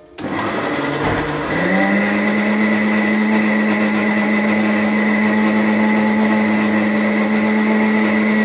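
Electric mixer grinder switched on, its motor spinning up and rising in pitch over the first two seconds, then running at a steady high whine as it grinds a wet coconut and curd chutney paste in its stainless steel jar.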